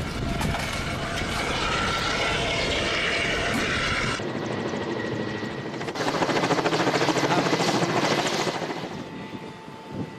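Helicopter running, its rotor chop loudest from about six seconds in and fading near the end, with abrupt changes in the sound at about four and six seconds.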